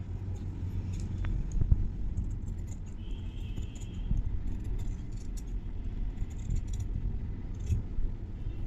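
Large tailoring scissors cutting through cotton blouse fabric: scattered small clicks of the blades and handling of the cloth, with one sharp thump about two seconds in, over a steady low hum.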